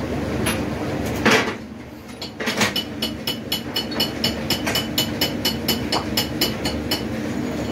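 Quick, even run of light metal-on-metal clinks, about four a second, over a steady low workshop hum, with a short loud rasp a little over a second in.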